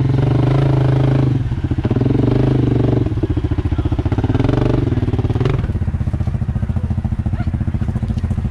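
ATV engine revving under load as the quad is driven to get it out of deep mud. The revs drop about a second and a half in, pick up again around three seconds, then fall to a lower, pulsing run near six seconds.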